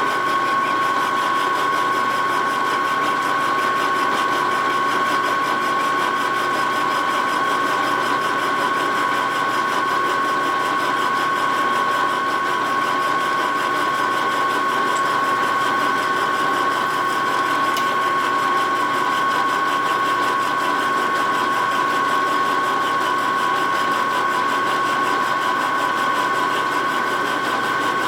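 Vertical milling machine running with its end mill cutting inside an aluminium Harley-Davidson knucklehead engine case: a steady machine whine with two high tones that holds unchanged.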